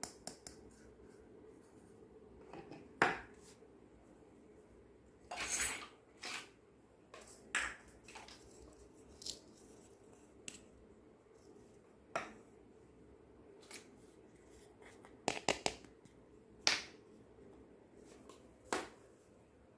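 Small plastic pieces of a miniature toy kitchen set being handled, with scattered light clicks and taps as they are set down or fitted together, and a brief rustle about five and a half seconds in.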